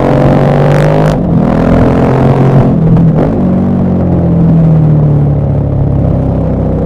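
KTM 1190 Adventure R's LC8 V-twin engine running under load while the motorcycle is ridden uphill. Its note rises through the first second, breaks off briefly about a second in and again about three seconds in, then runs steadier.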